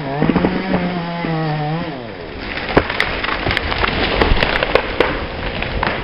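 Chainsaw running at high revs as it cuts through the white pine leader, its engine note dropping away about two seconds in. The wood then cracks and splinters with a run of sharp snaps as the cut top breaks off and comes down through the branches.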